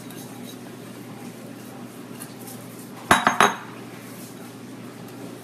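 A brief clatter of metal kitchenware about three seconds in: two or three quick clinks with a short metallic ring, over a low steady kitchen background.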